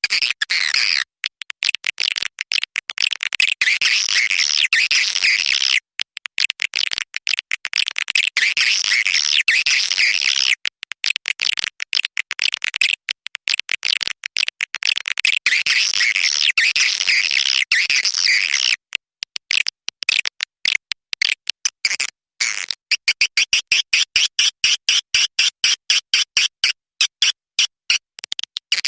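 Swiftlet calls played back as a lure sound for a swiftlet house: dense high chattering twitters, cut by frequent abrupt gaps, turning to a run of rapid, evenly spaced pulses from a little past the three-quarter mark.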